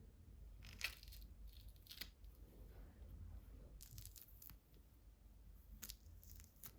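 Faint handling sounds at a desk: a few short, sharp clicks and paper rustles spaced a second or two apart, typical of stationery and journal pages being handled.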